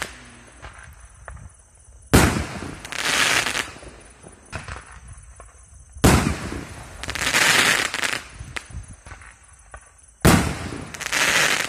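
2-inch shot-out aerial fireworks firing three times, about four seconds apart: each a sharp launch bang, then the shell bursting overhead in a noisy blast lasting about a second.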